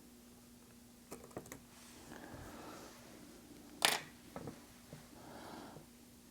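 Small hand tools and tiny parts clicking and tapping during iPhone X disassembly: a few light clicks about a second in, one sharp click just before four seconds, then smaller ticks, with soft scraping between.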